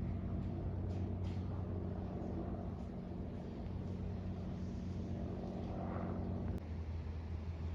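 Steady low rumble of aircraft engines overhead. The sound changes abruptly with a click about six and a half seconds in.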